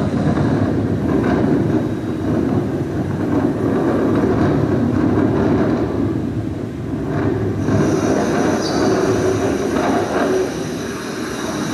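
Heavy storm surf breaking during a storm surge: a loud, continuous rush of waves and churning water, steady throughout.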